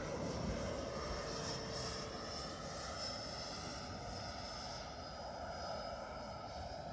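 Radio-controlled OV-10 Bronco model flying past: its twin electric-driven propellers buzz under a simulated turboprop whine from the onboard sound module. The steady multi-tone whine slowly fades.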